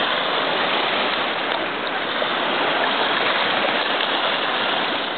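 Shallow seawater washing and lapping close to the microphone: a steady, even rushing with no single splash standing out.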